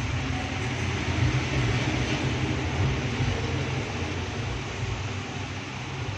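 Steady mechanical hum with an even rushing hiss.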